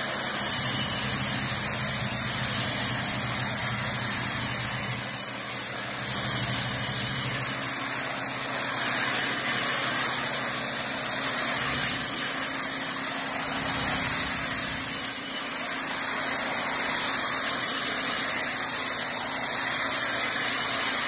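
Pressure washer spraying water from a fan-tip wand onto wooden fence boards: a steady, loud hiss of spray over the low, even hum of the machine running.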